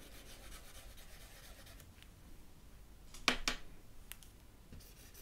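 Dry-erase marker writing on a small whiteboard: faint rubbing strokes, then a couple of sharp clicks a little past three seconds in, the loudest sounds, and a few lighter ticks after.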